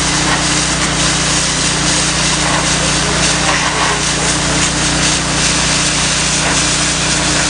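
Honda-engined 5000 PSI pressure washer running at a steady drone under the loud, continuous hiss of the high-pressure water jet.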